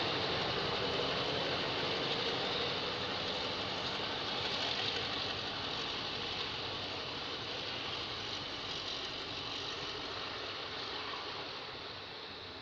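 Caterpillar-engined D10H diesel locomotive running as it pulls away along the track, its engine sound fading steadily.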